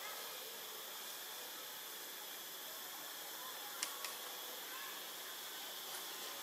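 A steady hiss of background noise, with two sharp clicks close together about four seconds in.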